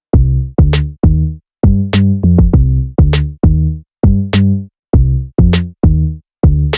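Electronic music with a drum-machine beat: deep bass hits, each with a sharp click, about two a second, stopping dead for short gaps between phrases.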